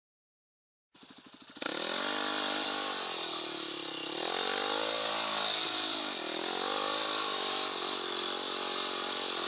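Dirt bike engine running close to the microphone, coming in about a second in and revving down and back up several times.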